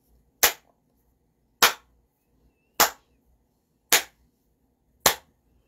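Five slow, evenly spaced hand claps, one a little over every second.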